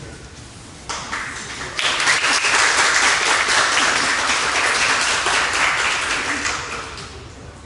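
Audience applauding: dense hand clapping that starts about a second in, fills out just after, and tapers off near the end.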